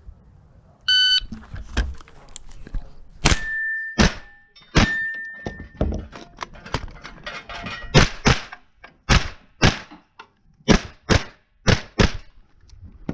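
A shot timer beeps about a second in, then a pistol-caliber carbine fires about a dozen shots, the later ones in quick pairs. A steel plate target rings after a couple of the early shots.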